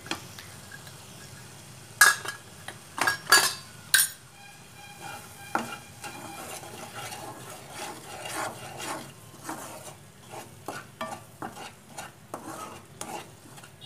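Spatula stirring and scraping a masala of onion-garlic-ginger paste and spice powders around a kadhai as it fries in oil, with a steady sizzle underneath. Several sharp knocks of the spatula against the pan come in the first few seconds and one more a little later, followed by quicker, softer scraping strokes.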